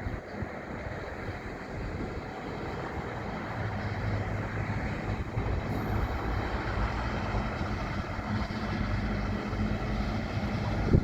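A train's engine running with a steady low hum over a broad rumble, growing slightly louder as it comes closer.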